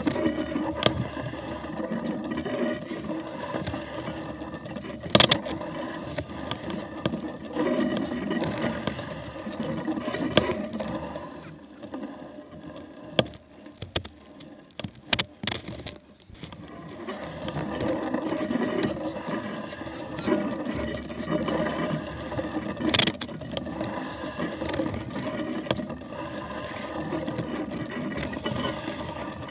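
Mountain bike ridden slowly over rough, wet grass: a steady rattling rumble from the bike and camera mount, with scattered sharp knocks and clicks. It eases off for a few seconds near the middle, where only separate clicks are heard.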